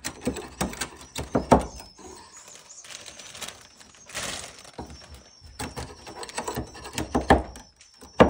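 Irregular knocks, clicks and scraping of swiftlet nests being pried off wooden planks with a scraper, with faint high twittering chirps joining about halfway through.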